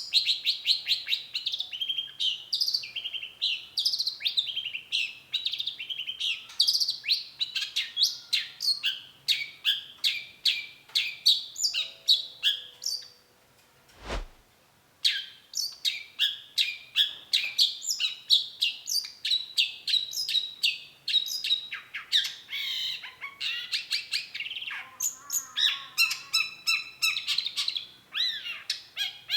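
Long-tailed shrike singing a fast, unbroken string of high chirping notes. About halfway through the song stops briefly and a single sharp click is heard, then the song resumes, turning into a quicker trilling passage near the end.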